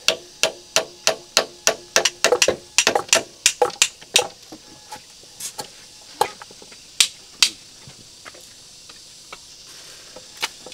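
Hammer driving nails into wooden formwork boards: quick sharp blows, three or four a second for about four seconds, then a few scattered strikes.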